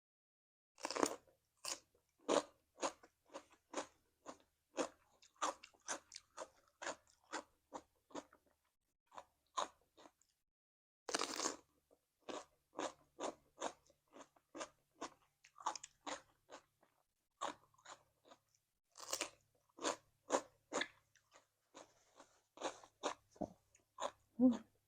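A person chewing crunchy food, cucumber salad with raw vegetables: a steady run of crisp crunches, about two to three a second, with a longer, louder bite about eleven seconds in.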